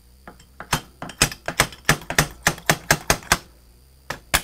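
Small hammer tapping quickly and lightly on metal, about five sharp taps a second, pausing briefly near the end before starting again: it is knocking at the stuck end cap of a Starrett level's vial assembly to work it loose.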